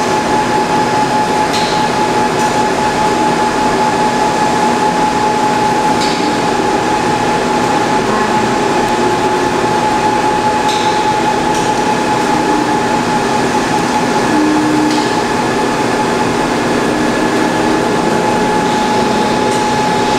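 Bridge-type CNC machining center running a program with its spindle turning at 444 rpm and its axis drives on. Steady machine noise with a constant high whine, and a faint tick about every four to five seconds.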